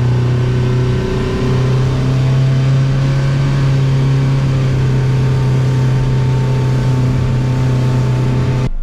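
Power boat's outboard engine running steadily at cruising speed with a constant low hum, over a steady rush of wind and water noise. It cuts off abruptly just before the end.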